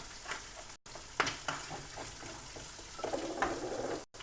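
Eggs being stirred in a cup, the utensil tapping irregularly against the sides, over the steady sizzle of food frying in a pan.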